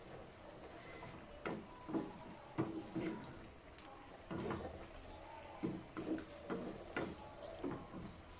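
Wooden spatula stirring chunks of chicken and pork in a nonstick frying pan: irregular soft knocks and scrapes against the pan, about one every half second.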